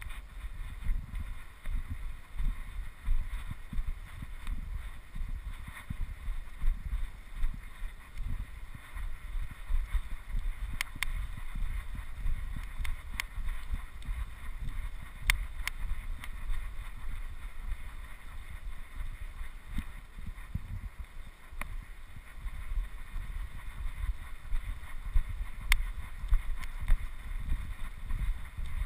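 Wind buffeting the microphone in an irregular low rumble, over a faint steady hiss, with a few sharp clicks scattered through.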